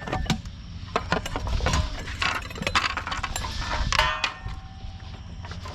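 Scrap metal clanking and clinking as pieces are handled and set down, with a louder ringing clang about four seconds in.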